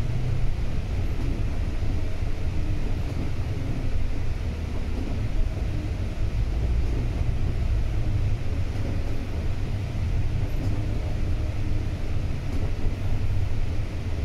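Volvo B9TL double-decker bus running: a steady low rumble of its diesel engine mixed with road noise.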